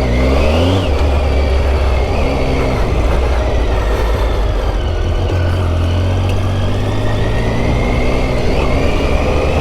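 Triumph Tiger 800 inline-three engine running while the bike is ridden, revving up in the first second, then rising and falling in pitch with the throttle over a steady rushing noise.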